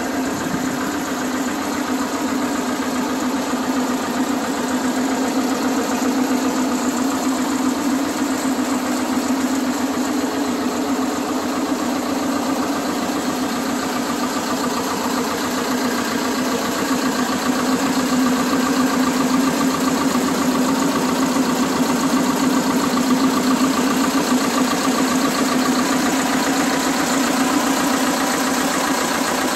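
Vladimirec T-25A1 tractor's two-cylinder diesel engine idling steadily, a little louder in the second half.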